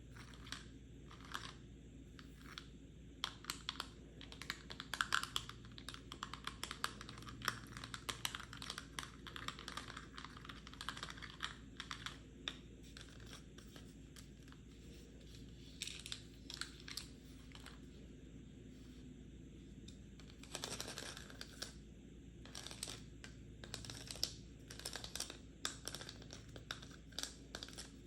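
Rapid, irregular tapping on a pill box, in quick clusters of light clicks, with a brief scratchy rustle about twenty seconds in.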